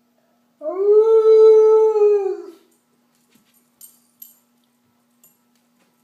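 Alaskan Malamute giving one long howl of about two seconds, sliding up at the start, holding a steady pitch and dropping away at the end.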